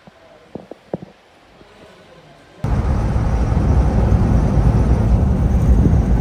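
A few short knocks about half a second to a second in. Then, starting suddenly about two and a half seconds in, a loud steady low rumble of wind and road noise from a moving vehicle.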